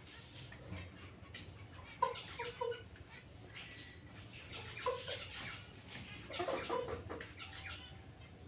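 Domestic hens clucking in short groups of low clucks, the loudest group about two seconds in, with more around five and six and a half seconds in.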